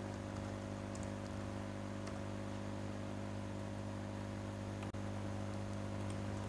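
Steady electrical mains hum with a stack of tones, over faint hiss, with a few faint computer mouse clicks.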